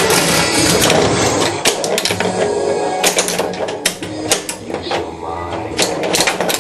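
Bally's The Shadow pinball machine in play: its electronic game music and sound effects over irregular sharp mechanical clacks from the flippers, solenoid-driven playfield devices and the steel ball striking targets and rails.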